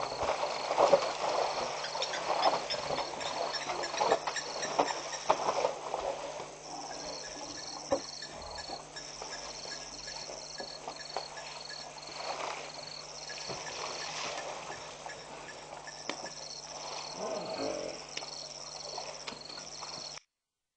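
African elephants shuffling and kicking on dry, dusty ground, in rough scuffing bursts that are thickest over the first six seconds and sparser after. Underneath runs a rhythmic high chirping, about three pulses a second, and a steady low hum.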